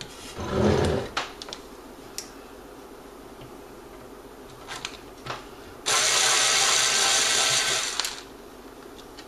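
Small handheld cordless electric screwdriver running steadily for about two seconds, driving a screw in the variac's housing. Before it comes a handling thump and a few light clicks.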